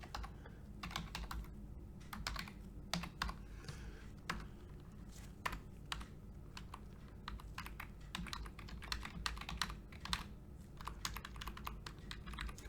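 Typing on a computer keyboard: irregular runs of light key clicks.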